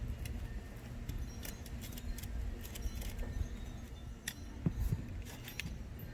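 Light metallic clicks and scrapes from a hand screwdriver loosening the terminal screws of a hot tub's electrical plug. The clicks are irregular and scattered, with a few sharper ones about four and a half seconds in.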